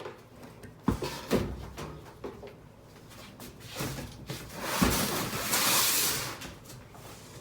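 A few hard knocks and clunks of objects being handled, then about two seconds of rustling noise.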